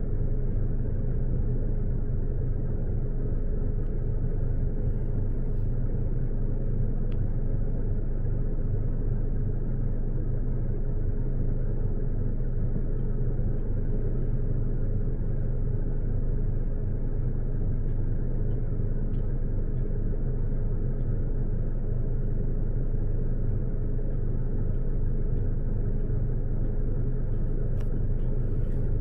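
A vehicle engine idling steadily: an even low hum and rumble that holds one pitch throughout. A few faint, sharp distant clinks come near the end.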